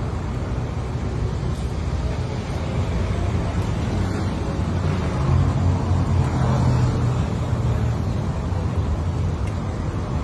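Steady road traffic noise, with a vehicle engine's low hum growing louder for a few seconds around the middle.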